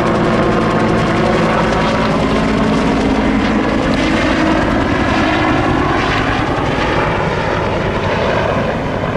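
Firefighting helicopter of the Bell UH-1 Huey type flying past, its two-blade main rotor and turbine engine running steadily, the pitch shifting gently as it moves. The sound eases off slightly near the end.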